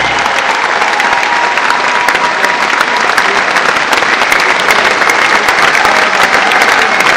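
Large concert audience applauding: dense, steady clapping. The last low notes of the band stop right at the start.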